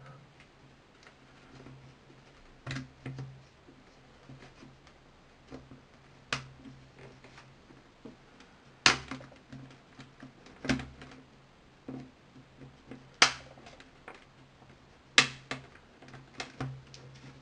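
Plastic snap clips of a mobile phone's housing clicking loose as a plastic opening tool pries the frame off, with about six sharp clicks a couple of seconds apart and smaller ticks and scrapes between. A faint steady low hum runs underneath.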